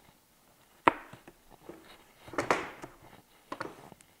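Wooden workpieces handled during a glue-up: a sharp wooden knock about a second in, a short scraping slide around the middle, and lighter knocks near the end.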